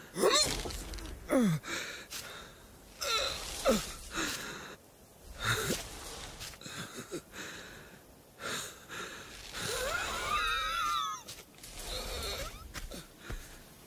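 An animated sheep character's wordless vocal sounds: wheezing, gasping breaths and short groans that fall in pitch, with a longer wavering cry about ten seconds in.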